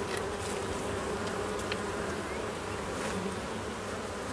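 Swarm of Africanized honeybees buzzing steadily, the hum of many wings around a clustered swarm.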